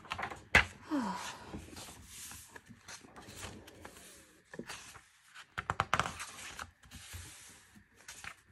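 Glossy photobook pages being turned and smoothed flat by hand: paper rustling and sliding, with a sharp tap shortly after the start and a cluster of crisp clicks about six seconds in.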